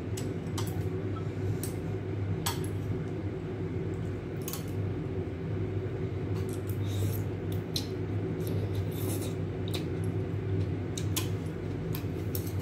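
Stainless-steel chopsticks and a metal spoon clinking against a ceramic soup bowl while eating noodle soup: about a dozen scattered light clicks, over a steady low hum.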